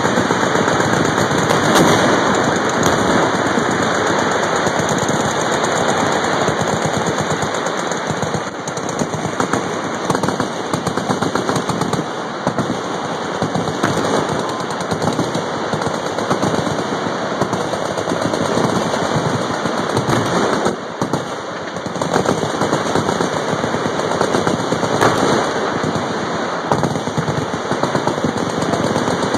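Many machine guns on a firing line shooting at once: a dense, unbroken rattle of overlapping automatic fire that thins briefly about two-thirds of the way through.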